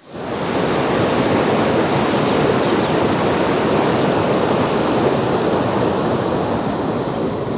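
Fast, shallow river rushing over rocks: a steady, loud wash of running water.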